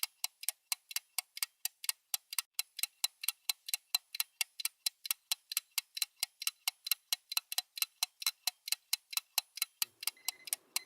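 Mechanical watch movement ticking steadily and fast, about five beats a second, each tick sharp and clicky. Near the end a faint low rustle joins the ticking.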